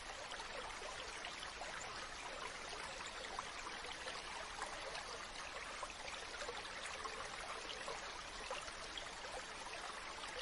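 Running water of a stream, a steady rush with fine splashing.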